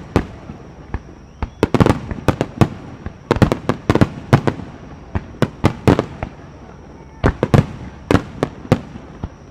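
Aerial fireworks shells bursting in a rapid, irregular series of sharp bangs, coming in clusters separated by short gaps of a second or so.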